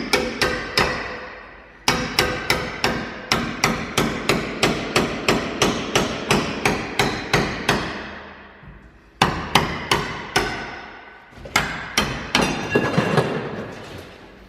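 Hammer blows on metal, working a stubborn bolt free: runs of sharp, ringing strikes about three a second, pausing briefly a few times.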